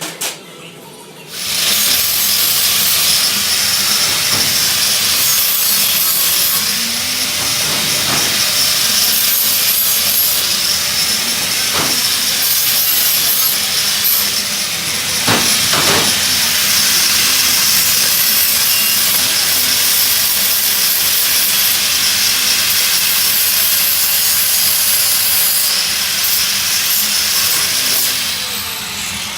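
A metalworking tool running with a loud, steady hiss, starting about a second and a half in and easing off near the end.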